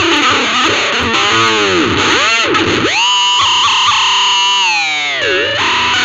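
Ibanez RG350DX electric guitar played with distortion through a VOX Soundbox Mini amp. A quick run of notes is followed by deep whammy-bar dives and rises, a held note with slight wavering, and another dip and return near the end.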